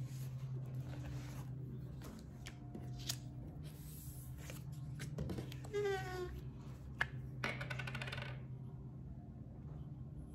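Handling of cardstock, vellum and glue on a tabletop: scattered light taps and clicks, with a brief squeak about six seconds in, over a steady low electrical hum.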